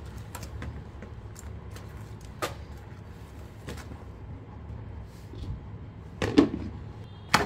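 Rotis being handled and stacked inside a steel-lined insulated casserole: scattered light taps and rustles, then a louder clunk about six seconds in and a sharp knock near the end.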